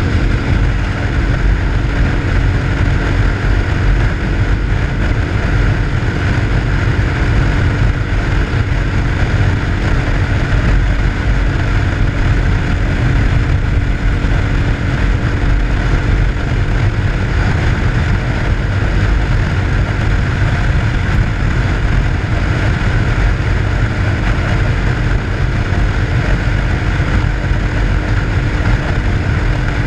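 RPS Hawk 250 dual-sport motorcycle's engine running at a steady cruise, under a heavy rush of wind over the microphone.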